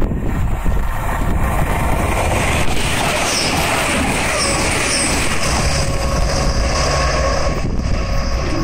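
A train passing at speed on the East Coast Main Line: a steady, loud rush and rumble of wheels on rail, with a low steady hum joining near the end.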